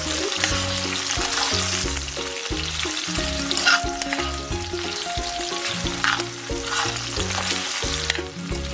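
Sliced onions and sweet red pepper sizzling in hot oil in a frying pan as they are sautéed, stirred now and then with a utensil.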